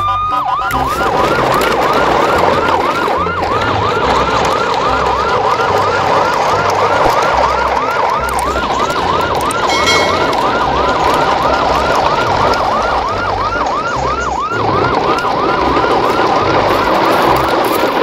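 Electronic siren yelping fast, about three quick falling sweeps a second without a break, over a steady noisy background.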